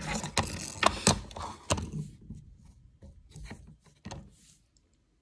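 Makeup being applied and handled: a string of sharp light taps and clicks with brushing, rustling noise over the first couple of seconds, then a few fainter taps that die away.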